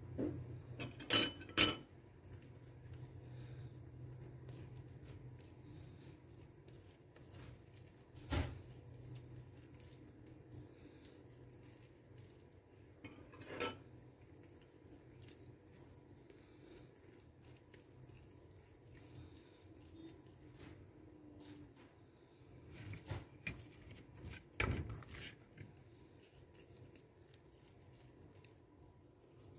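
Sparse clinks and knocks of a metal pot and a spoon against dishes while soft dough is worked by hand in the pot: two close together about a second in, single ones about a third and almost halfway through, and a small cluster near the end, with faint handling noise between them.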